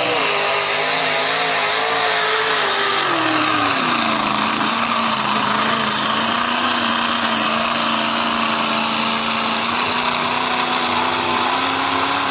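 Mud bog truck engine held at high revs as the truck powers through a mud pit. The pitch drops about three seconds in, then holds high and steady, edging up near the end.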